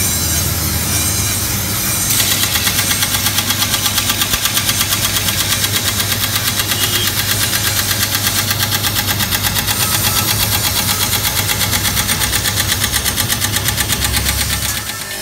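Steel sickle blade ground against a spinning belt-driven grinding wheel: a steady machine hum under a harsh grinding hiss. From about two seconds in, the grinding pulses rapidly and evenly.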